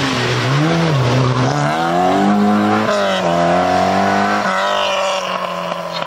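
Rally car engine revving hard as the car accelerates away through the gears: the pitch climbs and drops sharply at a gear change about three seconds in, then climbs again and drops at another shift a second and a half later.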